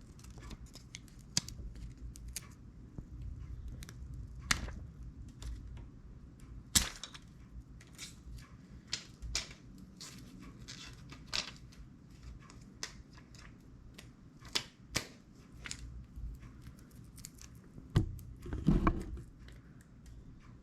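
Hands handling and peeling battery adhesive strips and their plastic backing on a phone: scattered small clicks, taps and crinkles, with a few sharper taps and a cluster of knocks near the end.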